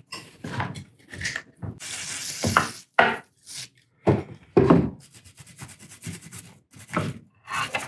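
WD-40 aerosol can spraying with a hiss through its straw onto a greasy drill press part, in short bursts, to clean it. A few knocks and rubbing come from the part and can being handled on the bench.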